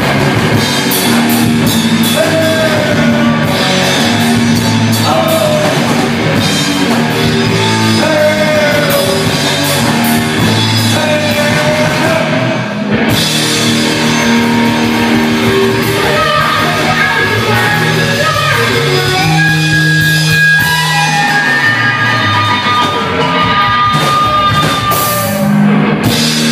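Rock band playing live: drum kit, electric guitar and bass guitar with a lead vocalist singing.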